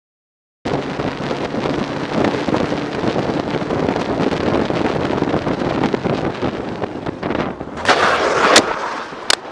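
Road and engine noise from a moving vehicle, heard through a dashcam microphone, starting abruptly after silence. About eight seconds in comes a louder harsh noise lasting under a second, then two sharp clicks near the end.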